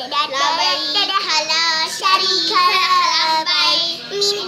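A child singing in a high voice: a wavering, sung melody that carries on with only brief breaks.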